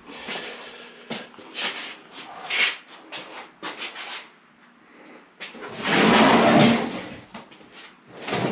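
Metal parts of a belt grinder's wheel and bearing assembly being handled and fitted: short scrapes and knocks, then a louder scraping rub lasting about two seconds past the middle.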